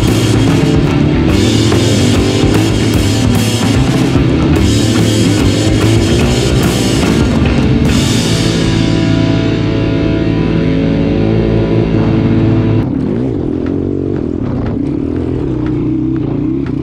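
Rock music with a driving drum kit. Over the second half the treble fades away, and about 13 seconds in the sound drops to a lower level.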